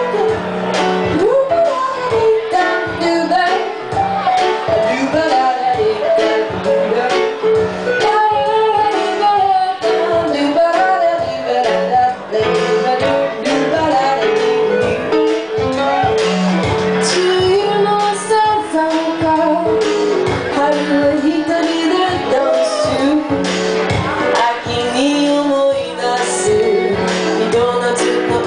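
A woman singing a song live into a microphone with band accompaniment, a violin among the instruments.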